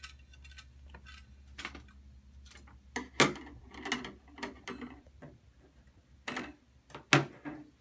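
Metal filter plates of a French press plunger clicking and clinking as they are twisted apart and set down one by one on a tabletop: scattered sharp knocks, the loudest about three seconds in and again near the end.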